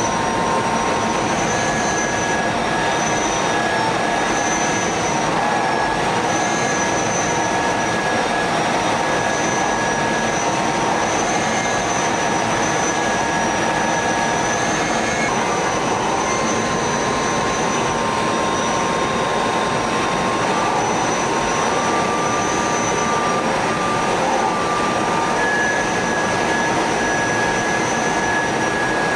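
Steady jet noise heard inside the cockpit of a KAI T-50 trainer in formation flight: the rush of the turbofan and airflow, with a thin high whine that wavers slightly in pitch.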